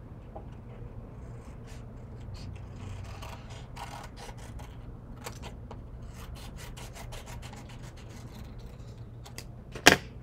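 Scissors cutting through scratchboard: a run of short snips and the stiff board rustling as it is turned. Near the end comes one sharp, loud knock as the scissors are set down on the table.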